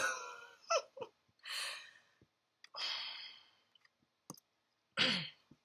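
A woman sighing and breathing out heavily about three times, the first exhale partly voiced, with a faint click a little after four seconds and a short voiced sound falling in pitch near the end.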